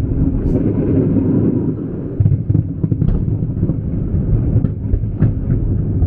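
Fireworks exploding in quick succession: a continuous low booming rumble with sharper bangs cracking through it many times.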